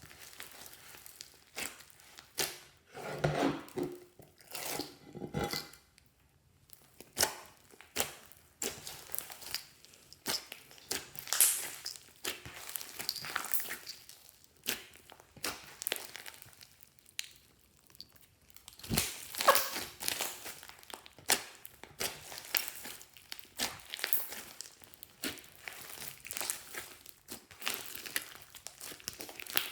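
Hands kneading and stretching slime: irregular sticky crackles, clicks and small pops, with a few louder bursts now and then.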